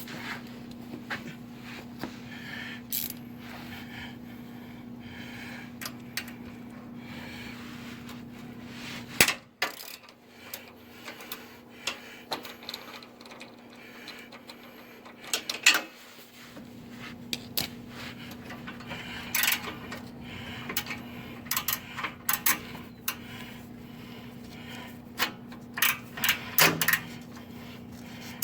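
Metal hand tools clicking and clinking against metal parts in irregular sharp knocks, while a wrench works bolts loose. Under them a steady low hum runs, cutting out for several seconds about a third of the way in and then returning.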